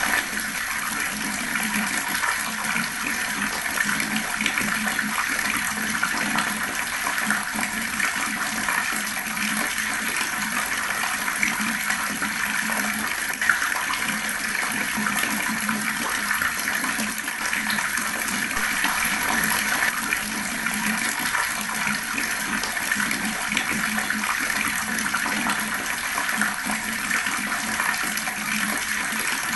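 Water flowing fast in a steady, unbroken rush.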